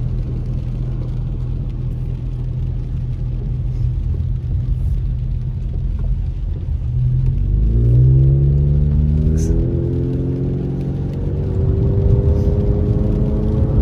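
Car engine and tyre noise heard from inside the cabin. The engine hums steadily at first, then revs up with a rising pitch about seven seconds in as the car pulls away, and settles into a steady drone.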